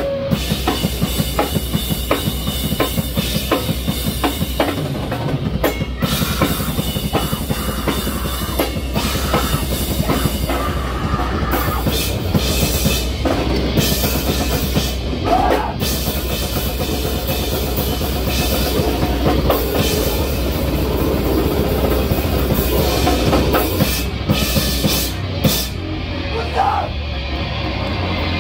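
Live rock band playing loud, with a drum kit keeping a steady beat over electric guitar and bass.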